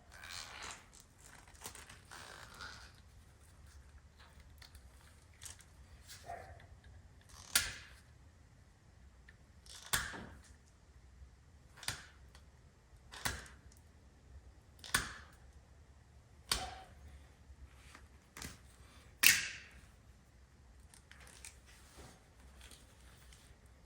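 A hand tool cutting into the end of a heavy copper battery cable: a series of sharp snips or clicks every second or two, with soft handling noise between. The cable is tough to get through.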